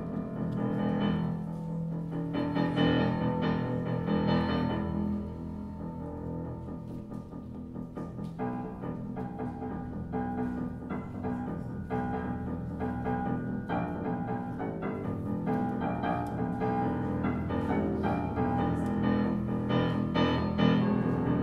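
A grand piano played solo: slow, held chords at first, then quicker, busier runs of notes from about eight seconds in.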